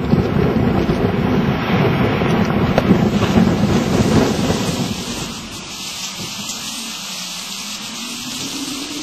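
Gale-force wind buffeting the microphone over the sea's surf, a loud, dense, rumbling noise; about five seconds in it drops away to a quieter steady hiss.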